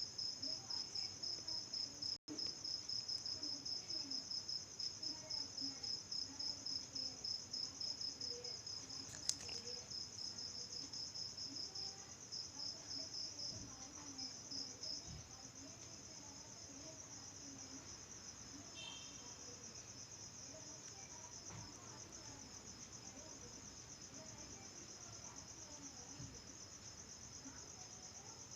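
Cricket chirping in rapid, regular pulses, louder at first and settling into a quieter, more even trill about halfway through.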